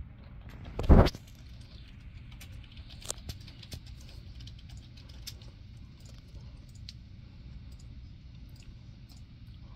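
Handling noise on a handheld phone: a steady low hum, one loud brief thump about a second in, then scattered light clicks.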